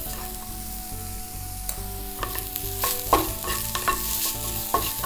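Onion and mushroom sizzling in oil in a frying pan while a spatula stirs them, with scrapes and clicks of the spatula on the pan from about two seconds in.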